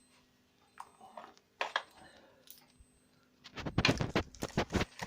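Handling noise: a few sharp knocks, then about a second of loud irregular clattering and rustling near the end, over a faint steady hum.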